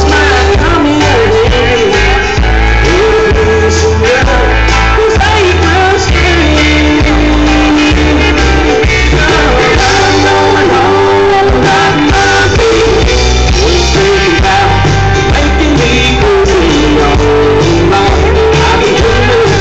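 Live band playing loud through a large outdoor PA: a singer over guitars and drums, with a steady pulsing bass beat.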